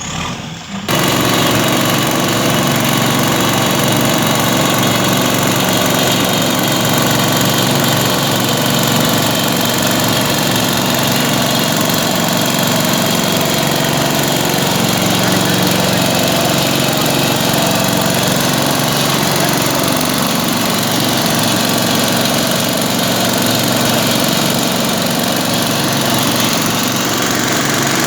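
JCB backhoe loader's diesel engine running steadily and loudly close to the microphone, starting abruptly about a second in.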